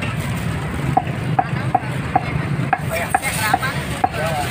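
Meat cleaver chopping roasted meat on a wooden chopping board: about eight quick strikes starting about a second in, each with a short ring.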